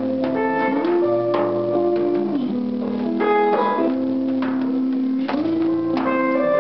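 Guitar music: long held notes that slide smoothly up and down in pitch, over plucked notes and chords.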